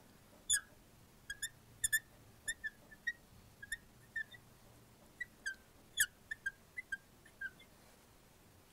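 Marker squeaking on a glass lightboard while words are written: about twenty short, high squeaks in uneven groups.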